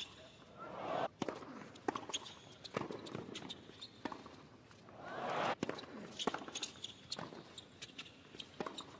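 Tennis rally on a hard court: crisp racket-on-ball strikes about once a second, with a player's grunt swelling with a stroke about a second in and again a little after five seconds.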